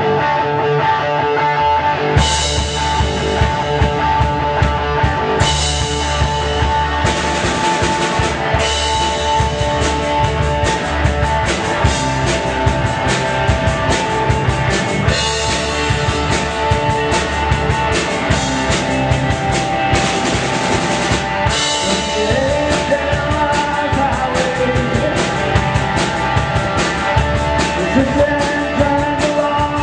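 Rock song played by a band: guitar and bass, with a full drum kit coming in about two seconds in and keeping a steady beat.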